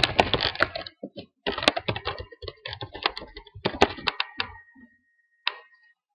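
Typing on a computer keyboard: quick runs of key clicks with a short pause about a second in, stopping about four and a half seconds in.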